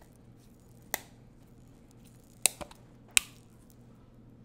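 Sharp plastic clicks from the snap cap of a plastic ranch dressing bottle being opened: one about a second in, then two close together and a last one soon after.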